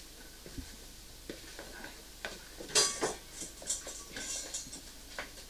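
Kitchenware being handled: scattered clicks and knocks, with a sharp clatter about three seconds in and a run of lighter ticks after it.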